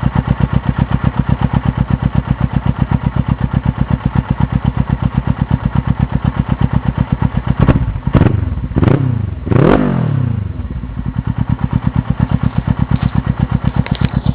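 Suzuki GS500E parallel-twin engine idling with an even, loud pulsing beat through an open race silencer, blipped a few times in quick succession about two-thirds of the way through, each rev rising and falling away before it settles back to idle.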